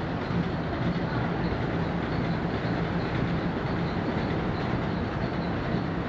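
Factory machinery running steadily, a dense mechanical noise with a faint regular beat about twice a second.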